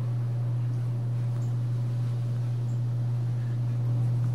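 A steady low hum over faint background noise, unchanging throughout.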